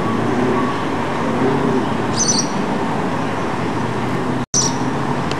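Steady outdoor background noise, tagged as distant traffic, with a short high bird chirp about two seconds in and another just after four seconds; the sound cuts out for an instant just after four seconds.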